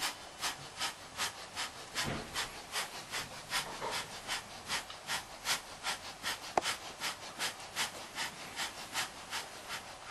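Faint, evenly paced scraping strokes, a little under three a second, with one sharp click about six and a half seconds in.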